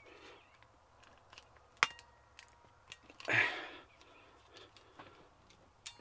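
Ratchet crimping tool being squeezed down on an MC4 solar connector: its ratchet gives a few scattered sharp clicks, the loudest about two seconds in, with a brief rustle midway.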